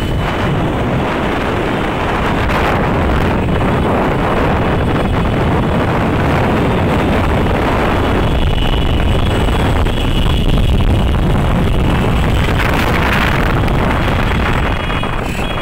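Loud, steady wind buffeting on the microphone of a phone carried on a moving vehicle, with the running of motor vehicles underneath.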